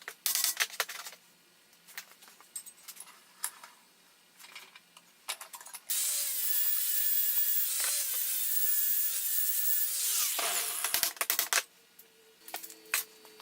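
Scattered clicks and handling knocks, then a handheld power tool spins up and runs steadily for about four seconds with a hissing edge, before winding down with a falling pitch near the end.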